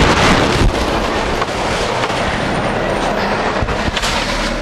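A large truck with dual rear wheels passing close by: loud, steady engine and tyre noise.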